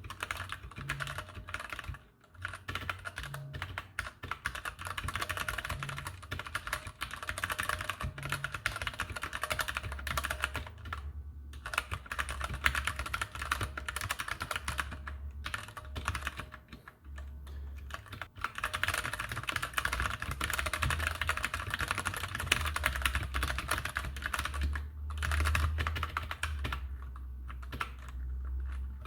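Typing on a plastic-case Keychron K8 tenkeyless mechanical keyboard with hot-swappable Gateron Brown tactile switches: a rapid, continuous stream of key clicks with a few brief pauses.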